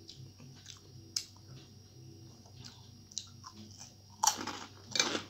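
Chewing and soft mouth clicks of a person eating rice and curry by hand, with two louder chewing sounds about four and five seconds in.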